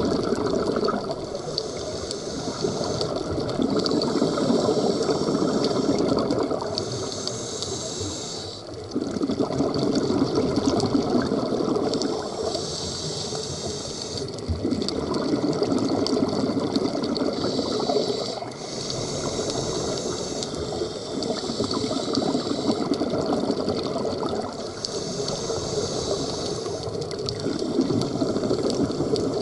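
Scuba diver breathing through a regulator underwater: a hissing inhalation alternates with a bubbling rush of exhaled air, one breath every four to five seconds.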